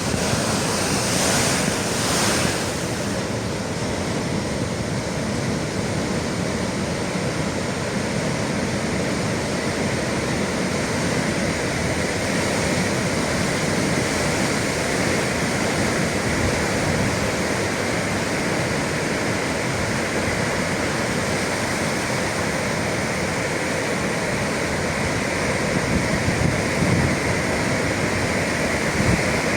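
Atlantic sea waves and surf: a continuous rushing wash of water, a little brighter and hissier in the first couple of seconds.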